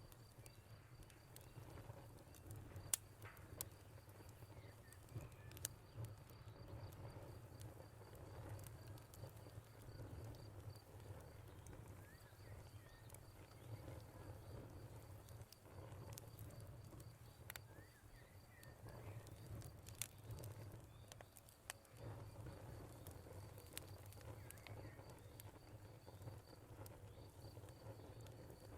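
Faint fire crackling with a low rumble and scattered sharp pops, over a cricket chirping in a fast, steady high trill. Brief bird chirps come and go in the background.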